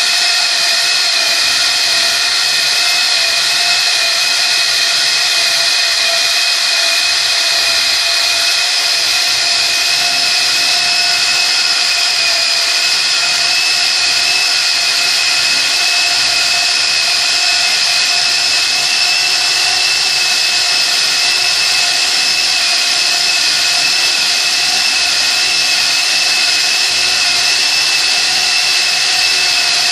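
SDS rotary hammer driving a dry core bit into a wall, running continuously under load with a steady, unchanging high whine.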